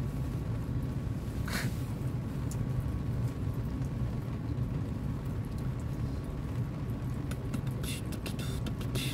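Steady low rumble of a car, heard from inside its cabin, with a brief rustle about a second and a half in and a few light clicks near the end.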